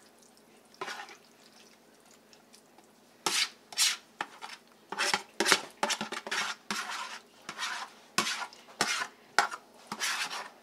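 Metal spoon scraping and knocking against a bowl as thick, creamy pot pie filling is scraped out into a glass baking dish. Quiet at first with one short scrape, then a quick, irregular run of short scrapes and clacks from about three seconds in.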